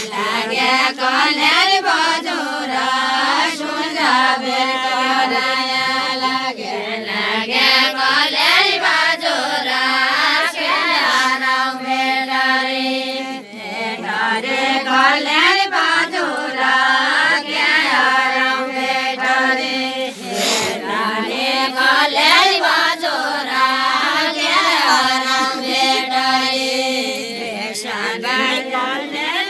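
Group of women singing a traditional Nepali deuda song without instruments: a slow, chant-like melody of long, wavering, drawn-out notes.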